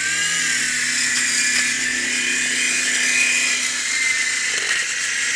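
Small toy RC helicopter's electric motors and rotors running at high speed, a steady high-pitched whine.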